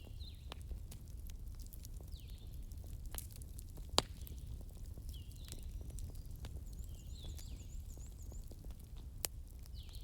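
Burning wood crackling: irregular small snaps over a low rumble of the fire, with a sharper pop about four seconds in and another near the end. Short high chirps recur every second or so.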